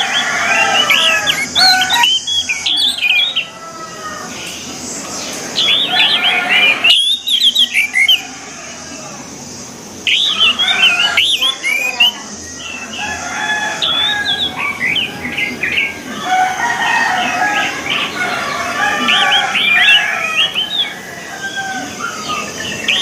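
Orange-headed thrush singing: rapid, varied phrases of whistles and chirps in loud bursts, easing off to quieter stretches about 4 seconds in and again around 8 to 10 seconds in.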